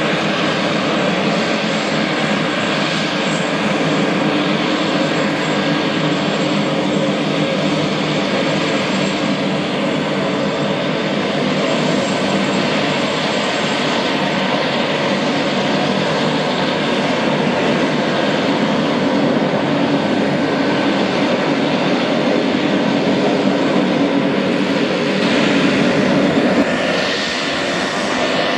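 A fixed-wing aircraft's engine running loud and steady, growing a little louder near the end before dropping off.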